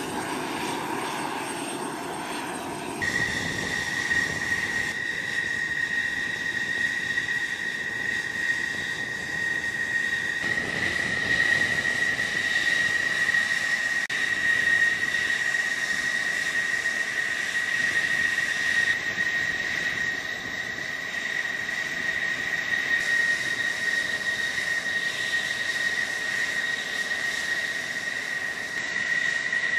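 F-16 Fighting Falcon's jet engine running on the ground: a steady high whine over a rushing hiss.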